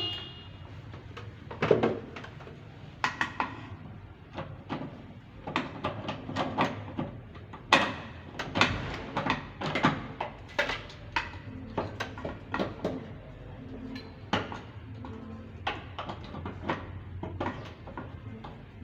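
Irregular metallic clanks and knocks of hand tools working on the fuel tank's mountings under the vehicle.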